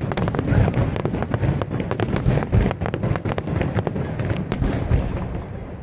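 Fireworks display: rapid, dense bangs and crackles of shells bursting over a continuous low rumble, easing off near the end.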